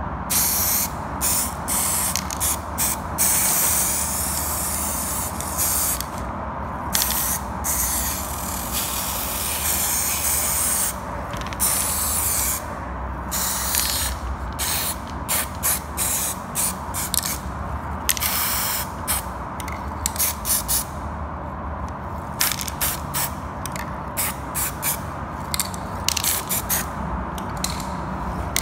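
Aerosol spray paint can hissing in many short bursts, stopping and starting with brief gaps between sprays.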